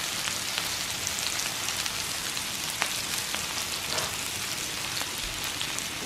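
Food sizzling in a frying pan: a steady hiss with scattered small pops.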